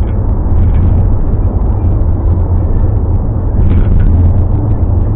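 Steady low rumble of a car driving, road and engine noise heard inside the cabin.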